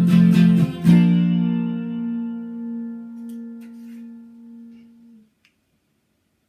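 Guitar strumming a few chords, then a closing chord struck about a second in that rings out and fades away over about four seconds.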